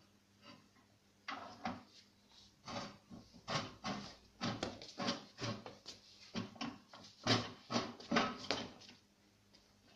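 Car tyre being worked off a steel wheel rim on a homemade tyre changer: the rubber bead scrapes and knocks against the rim in a run of irregular scrapes and knocks, starting about a second in and stopping shortly before the end.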